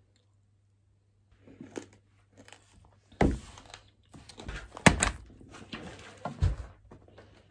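Thick paperback books being set down and handled on a table: several dull thuds, the loudest about three, five and six and a half seconds in, with paper rustling and sliding in between. The first second or so is quiet.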